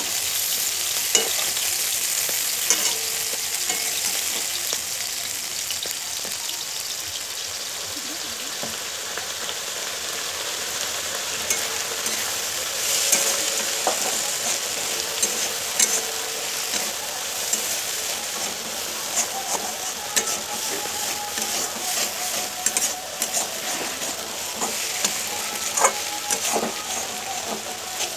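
Shredded cabbage and onion sizzling in a metal wok, stirred with a metal spatula that scrapes and clicks against the pan now and then over a steady frying hiss.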